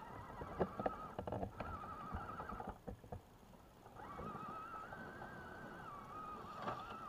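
Electric motor and geared drivetrain of an RC crawler truck whining as it climbs. The pitch wavers with the throttle, cuts out for about a second around three seconds in, then picks up again. A few sharp knocks come early on, louder than the whine.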